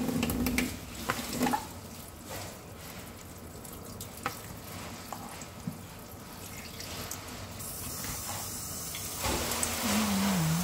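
Kitchen tap running into a sink, the water getting louder about nine seconds in, with a few light clicks. A person hums briefly near the end.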